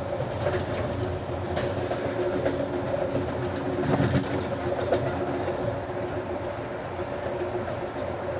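Amtrak Capitol Limited passenger train riding at speed: a steady rumble and hum with scattered clacks of the wheels over rail joints and switches, loudest about four to five seconds in.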